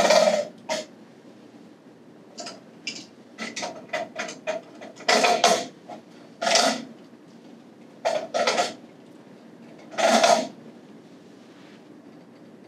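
Metal hand tools and fittings clinking and clanking against the brass and iron pipe trim of a sprinkler alarm check valve as a pressure gauge is tightened on with pliers. The sounds come as irregular sharp clanks, about five louder ones with lighter ticks and scrapes between.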